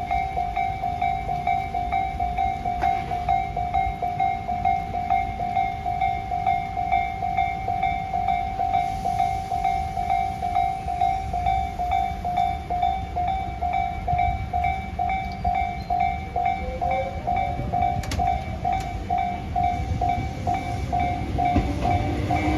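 Japanese railroad-crossing warning bell ringing a steady, repeated clang of about two strikes a second over a low rumble. From about 16 s in, a rising whine, likely an approaching electric train's motor, joins it.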